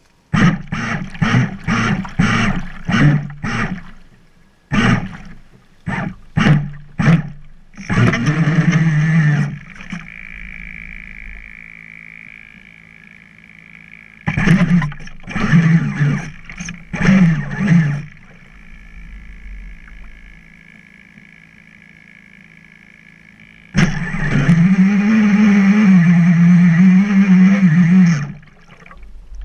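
Onboard sound of an RC drag boat's Turnigy 3974 2200KV brushless motor and propeller on a 3S LiPo. It gives a quick string of short throttle blips, then bursts of throttle a second or two long, with a quieter steady whine between them. Near the end comes a loud run of about four seconds whose pitch rises and wavers.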